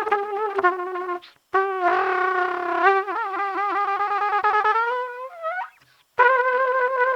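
Trumpet played with experimental techniques. Short choppy notes come first, then a long wavering note whose pitch wobbles widely and bends upward before cutting off. After a brief gap a new held note starts near the end.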